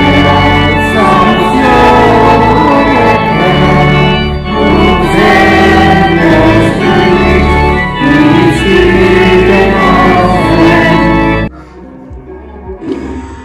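Church organ accompanying congregation singing a hymn. It cuts off abruptly near the end, leaving a much quieter room.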